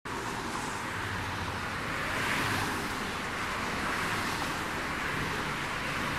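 Steady rushing road and wind noise of a car driving at speed, with a low rumble underneath.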